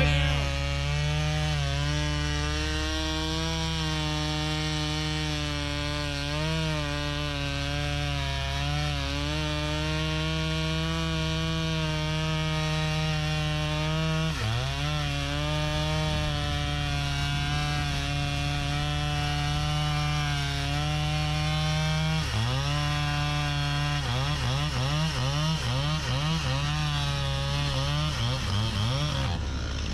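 Chainsaw cutting wood, its engine running at high speed. The pitch drops sharply and recovers twice as the chain bogs in the cut, then dips and recovers over and over, about twice a second, near the end.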